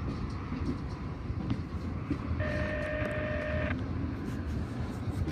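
Freight train cars, tank cars and boxcars, rolling past below with a steady low rumble of wheels on rail. Near the middle a steady high tone sounds for just over a second and stops.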